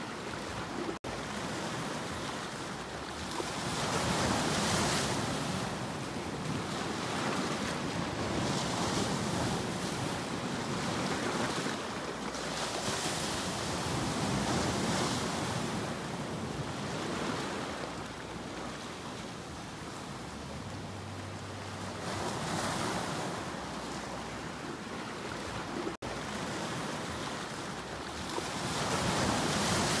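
Sea surf breaking and washing over shoreline rocks, rushing louder every several seconds and easing between. The sound cuts out for an instant twice, about a second in and near the end.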